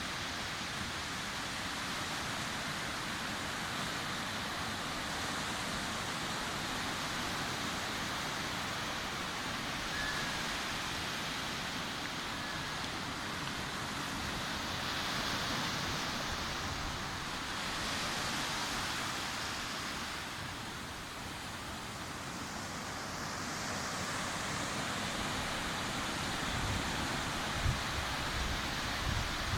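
Sea surf on a beach: a steady rush of waves breaking and washing in, swelling louder about halfway through and again a little later, with a few low bumps near the end.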